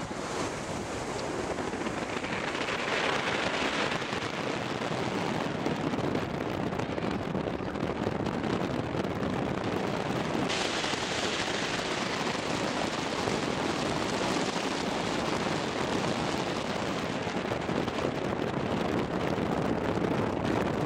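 Wind rushing over the microphone, a steady hiss that turns sharper about halfway through.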